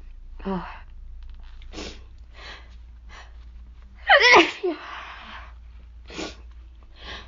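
A woman with a cold sneezing: one loud, breathy, slightly squeaky sneeze about four seconds in, its voice sliding down in pitch and trailing off in a rush of breath, her voice hoarse from illness. Several short, fainter breaths and sniffs come before and after it.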